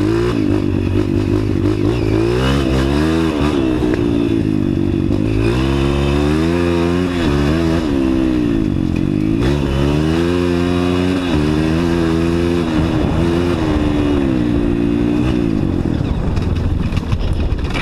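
Dirt bike engine under way, its pitch rising and falling back again and again as the throttle is worked.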